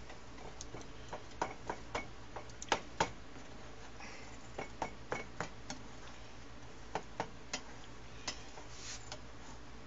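Spatula clicking and scraping against a skillet while stirring and breaking up soft scrambled eggs: irregular light taps, several in the first three seconds, then more around five and seven seconds in.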